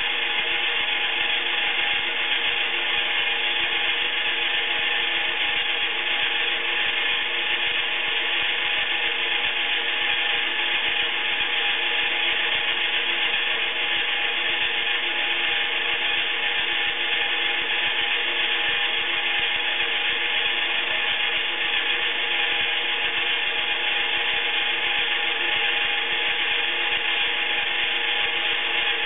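1990s Iriza toy washing machine running its wash: the small battery-powered motor turns the drum with laundry and water inside, giving a steady whirring with a few constant tones and no change in speed.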